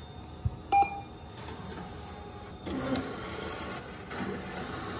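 ATM beeping once, then its cash deposit slot mechanism running in two stretches of about a second each as dollar bills are fed into it.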